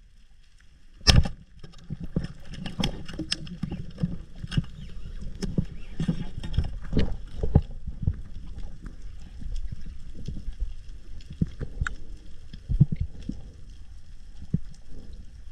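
Muffled underwater sound heard through a camera housing: a low rumble of moving water with scattered clicks and pops, and one sharp knock about a second in.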